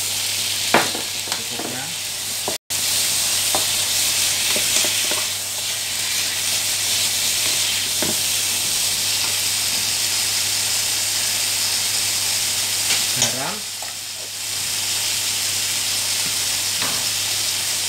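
Mustard greens sizzling in a hot nonstick wok just after soy sauce goes in, tossed and stirred with a wooden spatula. A steady frying hiss, with now and then a sharp knock or scrape of the spatula against the pan.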